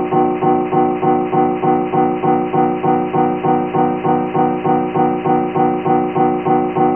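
Vocoder sound effect: a steady, pitched chord-like drone pulsing evenly several times a second, looping without change.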